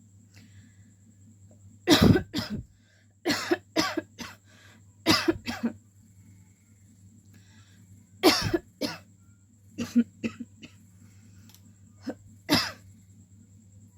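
A woman coughing on purpose in repeated short bouts of two or three coughs each, a second or two apart, some with a throat-clearing rasp.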